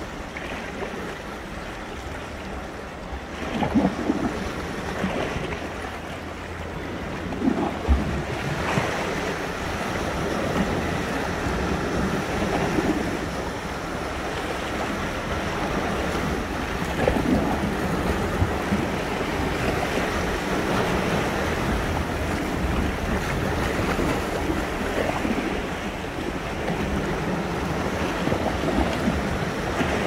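Sea waves breaking and washing on the shore in a continuous surging wash, with louder breaks about four and eight seconds in. Wind buffets the microphone, adding a low rumble.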